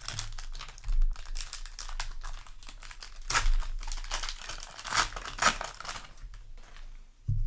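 A foil trading-card booster pack being torn open and crinkled, in irregular crackling bursts with a few louder rips.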